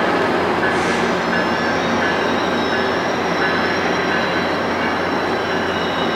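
VIA Rail stainless-steel passenger cars rolling slowly over curved track, with steady wheel squeal: a thin, high whine that sets in about a second in over the rolling noise.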